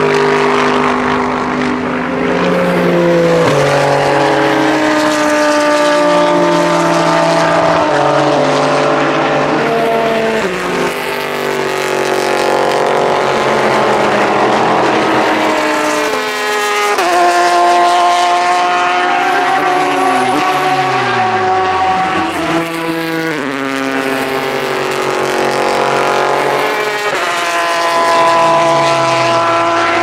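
Race car engines at speed, several cars overlapping, sports-prototype and GT machines. The engine notes step up and down in pitch as the cars shift gears through the corners. About two-thirds of the way through, one engine's pitch falls steeply on braking and downshifting.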